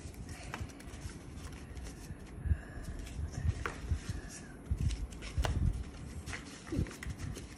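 Cut-out cardboard pizza slices being slid and pressed into a cardboard pizza box: irregular light taps and scrapes with a few soft thumps.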